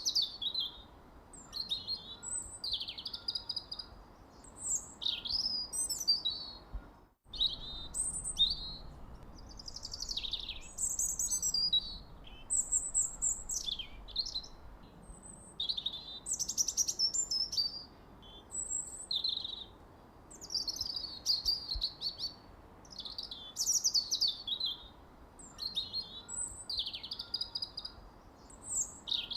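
Songbirds chirping and twittering in quick, overlapping high-pitched calls, one after another with no pause, broken only by a momentary dropout about seven seconds in.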